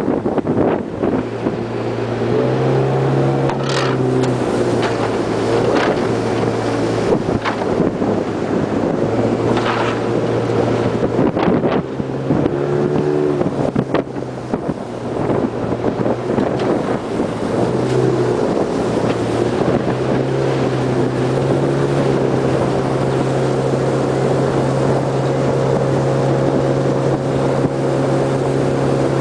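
Motorboat engine running under way, its pitch stepping up and down a few times, over a steady rush of wind and water.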